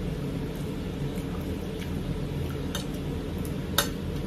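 Quiet sounds of a meal being eaten from plates and bowls: a spoon scraping and tapping the dishes, with one sharp clink a little before the end, over a steady low hum.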